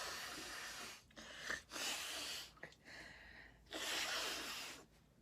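A woman with a head cold breathing heavily through a congested nose: three long, noisy, hissing breaths of about a second each, with short pauses between them.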